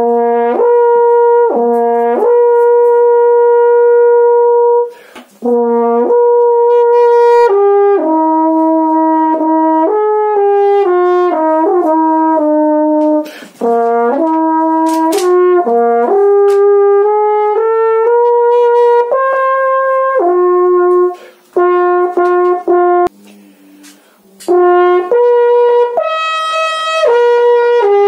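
Roy Benson double French horn played solo: a melody of mostly held notes with some quicker runs, broken by a few short pauses.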